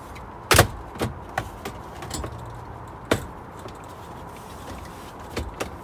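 Sharp plastic clicks and knocks from a 2003 Toyota 4Runner's lower dashboard trim panel being pulled loose from its clips. The loudest comes about half a second in, another about three seconds in, with a few fainter ones between.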